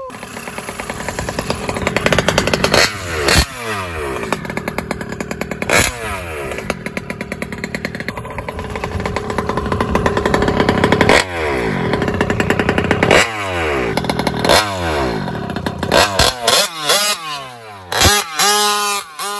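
RC truck's Taylor 46GT engine running loud and being revved repeatedly, its pitch climbing and then falling back each time. Near the end it gets a run of quick blips.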